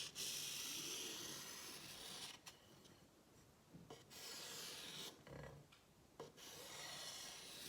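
Marker drawing on fabric as a line is traced around a plate: faint rubbing strokes, a long one of about two seconds at the start, then two shorter ones.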